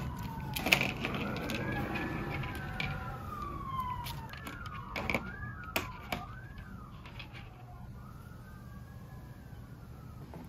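An emergency-vehicle siren wailing, its pitch sweeping slowly down and up, with quicker warbles around the middle. Over it come a few sharp clicks and rattles of small bolts and washers being handled on a table, the loudest about a second in.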